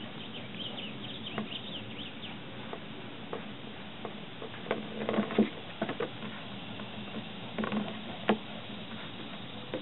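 Puppy moving and chewing a small toy on a wooden deck: soft scuffing and tapping of paws and claws on the boards, with a cluster of scrapes about five seconds in and a sharp tap about eight seconds in. A few brief high chirps sound in the first two seconds.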